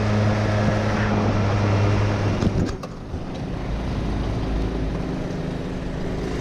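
Street go-kart's small engine running at a steady speed, then dropping to a lower idle with a brief clatter about three seconds in as the kart slows and stops behind another kart.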